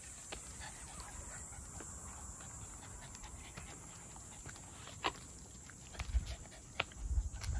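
Two Cavalier King Charles Spaniels walking on leashes on an asphalt path: scattered light clicks and taps, with a few louder low thumps near the end, over a steady high hiss.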